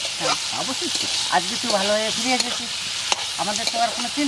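Men's voices talking over a steady hiss.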